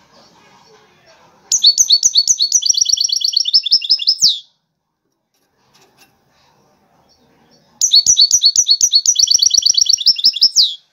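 A caged European goldfinch of the Moroccan 'wedani' type sings two similar high phrases, each about three seconds long. Each phrase has a few separate notes that run into a fast, even trill and ends in a quick downward sweep.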